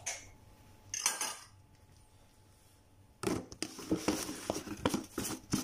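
A metal fork scraping and tapping against a frying pan and a small bowl: two short scrapes early, then a busy run of clinks and clatter from about three seconds in.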